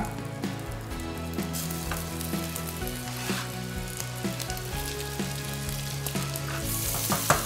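Melted butter and cane sugar sizzling in a hot frying pan. The sizzle grows louder near the end as diced apples are tipped in.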